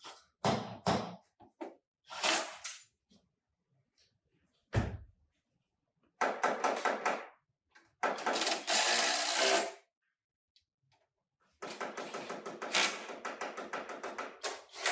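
Workshop tool noise during bodywork repair: a few sharp knocks, a heavy thud about five seconds in, then a power tool running in three bursts with a fast pulsing rhythm.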